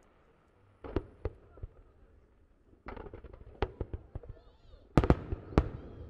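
Fireworks shells bursting: a few sharp bangs about a second in, then a cluster of reports with crackle from about three seconds, and the loudest two bangs near the end.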